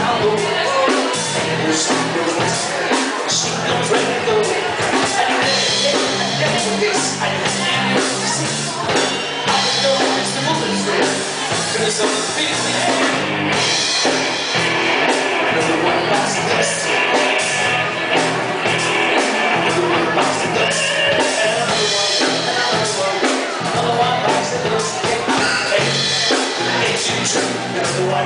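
Live rock band playing loud: a singer's amplified vocals over electric guitar, bass and a drum kit.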